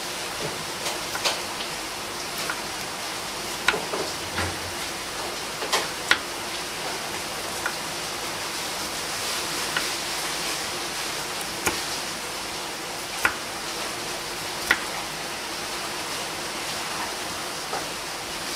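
Kitchen knife slicing a cucumber thinly on a wooden cutting board: scattered sharp taps as the blade meets the board, irregular and about one a second, over a steady hiss.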